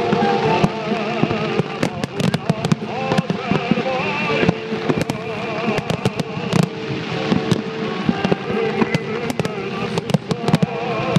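Fireworks going off: a dense, irregular run of sharp bangs and crackles from bursting aerial shells and low crossing comets, over music playing along with the display.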